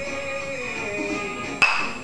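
Wooden balero ball knocking once onto its stick, a sharp click with a short ring about one and a half seconds in, over background music.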